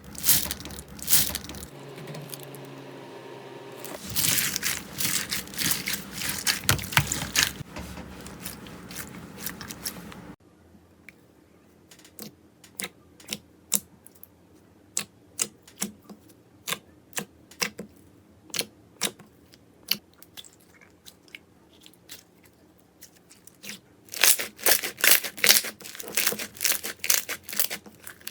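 Slime being squished and pressed by hand, making wet clicking and crackling pops. The crackling is dense and louder in the first part and again near the end, with sparser single pops, about two a second, in the long middle stretch.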